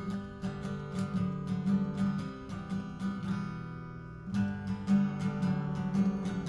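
Acoustic guitar strummed in a steady rhythm, softening briefly a little past halfway before the full strumming returns.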